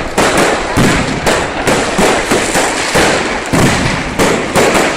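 New Year's Eve fireworks display: aerial shells going off in rapid succession, several bangs a second, with a continuous crackle between them.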